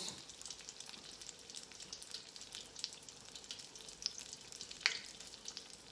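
Breaded mozzarella and pesto pocket deep-frying in an electric deep fat fryer: the hot oil sizzles steadily with many fine crackles, and one louder pop about five seconds in.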